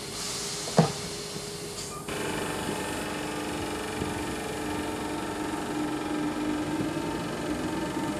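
Electric multiple unit starting away from a station platform: a hiss of air with one sharp clunk about a second in, then about two seconds in the hiss stops and the steady whine of the traction motors begins.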